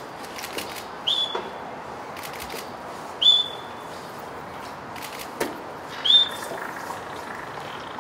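A keeper's training whistle blown three times, in short high blasts about two to three seconds apart: the bridge signal of positive-reinforcement training. Light rustling and faint knocks come between the blasts.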